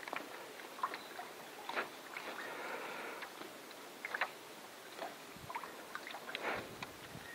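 Faint, irregular small splashes and light ticks of water close by, over a soft hiss.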